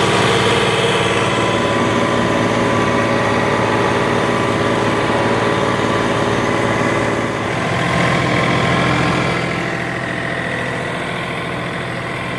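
An engine idling steadily, settling a little quieter about ten seconds in.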